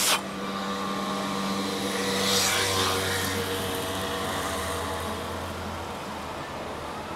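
A distant engine runs steadily with a low hum, and a swell of rushing noise peaks about two and a half seconds in. A brief bump at the very start comes from the camera being handled.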